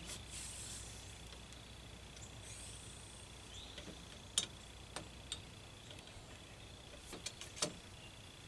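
A few light, sharp clicks and taps scattered over a quiet background, from handling the muzzleloading shotgun and its loading gear while the overshot card wads are seated.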